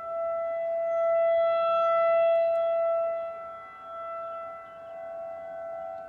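Outdoor tornado warning siren sounding a steady single-pitch tone for its monthly test. It swells loud over the first couple of seconds, then fades and wavers, with a second, slightly higher siren tone joining in the second half.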